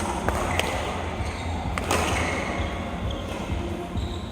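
Cue and billiard balls clacking: a few sharp knocks, the loudest just before two seconds in, over a steady room murmur.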